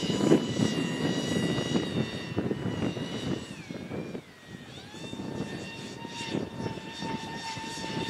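Whine of the FV-31 Cypher RC jet's electric ducted fans overhead. The pitch drops about halfway through and then holds steady, with wind gusting on the microphone, stronger in the first half.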